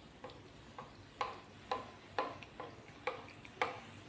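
Beignets of yeast dough frying in a pan of hot oil: a faint steady sizzle, with sharp clicks about twice a second.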